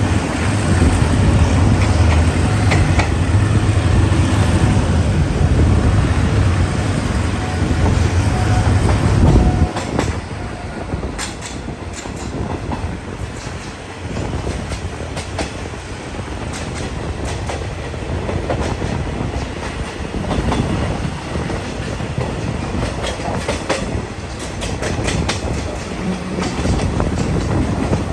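Train running along the track, its wheels clacking over rail joints. A heavy low rumble is loudest for about the first ten seconds and then drops away suddenly, leaving steadier rail noise with scattered clicks.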